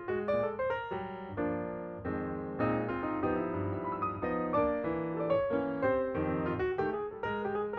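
Background piano music: a run of quick piano notes over held chords.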